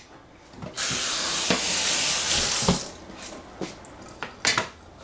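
Kitchen tap running into a stainless steel sink for about two seconds, rinsing a plastic cutting board, then turned off. It is followed by a few short knocks and clatters of the board against the sink.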